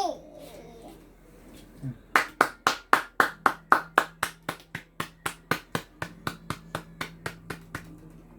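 Hand clapping in a quick, even rhythm, about four claps a second, loudest at first and gradually fading.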